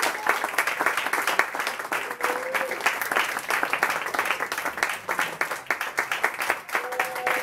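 An audience of schoolchildren applauding, a steady patter of many hands clapping.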